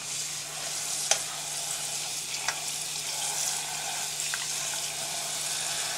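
Kitchen faucet running into a saucepan of just-cooked vegetables, a steady hissing splash of water, with a few light clicks of a slotted spoon against the pan.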